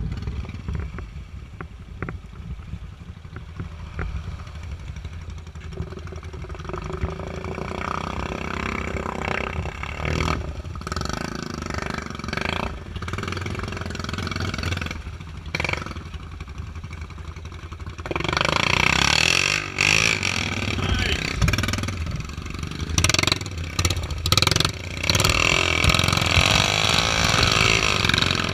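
ATV engines running and revving as the quads push through deep muddy water. The noise gets louder about two-thirds of the way in and stays loud to the end, as a quad powers up out of the water throwing spray.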